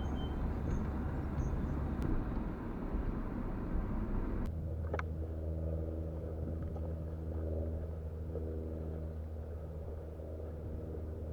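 Car driving on a rough dirt track: a low engine and tyre rumble, which about four seconds in changes abruptly to a steadier, even engine hum.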